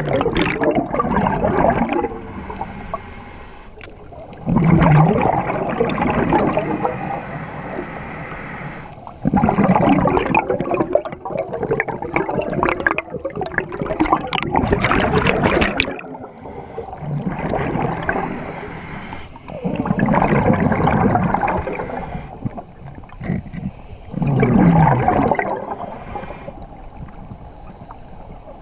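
Scuba diver breathing underwater through a regulator: each exhalation is a loud bubbling, gurgling rush lasting a few seconds, separated by quieter stretches while inhaling, repeating roughly every four to five seconds.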